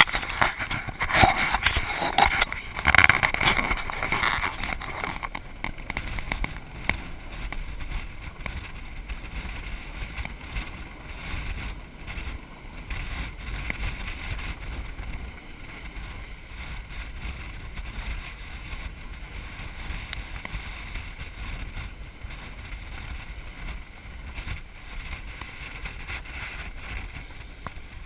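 Wind buffeting the microphone and water rushing and splashing along the hull of a sailing yacht heeled under sail in choppy sea. It is louder for the first few seconds, then settles into a steady rush.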